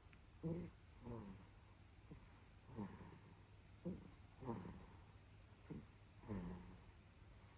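Soft snoring in sleep, repeating about every one and a half to two seconds: each cycle is a short snorting catch followed by a longer breath with a squeaky tone that falls in pitch.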